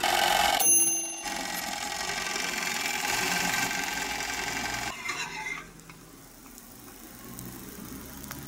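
Toaster oven's timer bell dinging once as the timer runs out, the cooking done, over the oven's steady running hum. The hum drops away after about five seconds.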